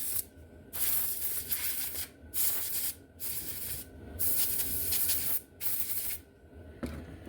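About six short bursts of scratchy hiss in a row as dust is cleaned off a slot car's rear axle gear.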